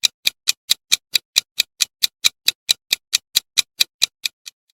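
Clock-style ticking of a quiz countdown timer sound effect, an even run of sharp ticks at about four or five a second that grows slightly fainter and stops just before the end.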